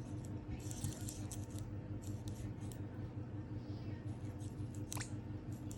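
Small clicks and ticks, typical of the EMO desktop pet robot's tiny motors as it moves, over a steady low hum. A short falling chirp comes about five seconds in.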